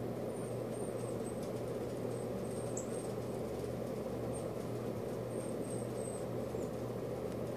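Northern cardinal nestlings giving faint, thin, very high begging peeps in short runs while the male cardinal feeds them at the nest, with one sharp downward chip about three seconds in. A steady low hum lies underneath and is the loudest sound.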